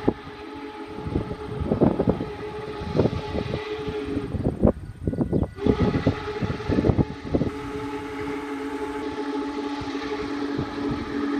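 Union Pacific 4014 steam locomotive's whistle sounding for a grade crossing: two long blasts of a chord of several tones, the first about four seconds long, the second starting about a second later and held long. Wind gusts buffet the microphone during the first half.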